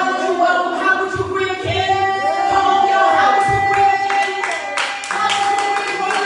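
Worship singing with voices holding long notes, joined about four seconds in by steady rhythmic hand-clapping.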